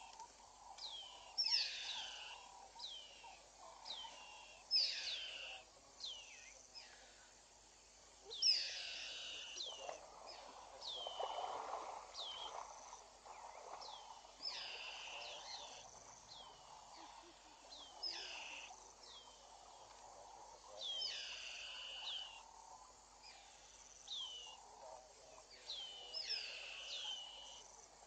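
Birds calling over and over, short notes that slide downward in pitch, coming in quick groups about every second, over a steady hiss that swells for a few seconds about ten seconds in.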